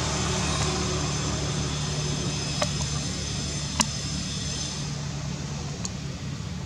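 Steady road-traffic noise with a low engine hum, a vehicle passing and slowly fading. Two sharp clicks stand out in the middle, the second the loudest, with a fainter click a couple of seconds later.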